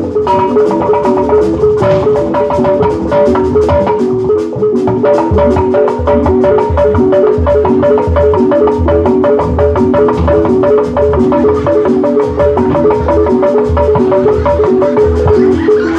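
Live jaipong gamelan music: struck metallophones play a fast, repeating melody over steady drum strokes.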